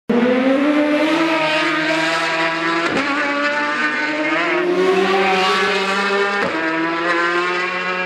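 Racing motorcycle engine at full throttle, accelerating hard. It rises steadily in pitch and changes up a gear twice, about three seconds in and again at six and a half seconds, each shift a sharp break followed by a fresh climb.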